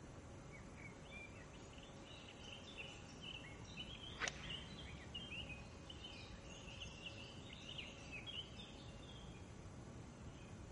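Faint woodland birdsong: a run of short chirps and quick warbling phrases, with one sharp click a little over four seconds in.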